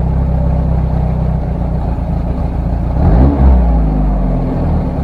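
Skoda rear-mounted four-cylinder car engine running steadily, with one brief rev about three seconds in that rises and falls back.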